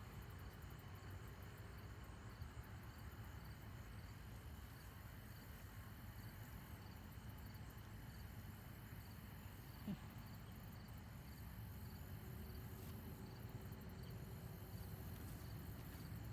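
Faint outdoor ambience: insects chirping steadily in a fine repeating pattern over a low rumble, with a single short click about ten seconds in.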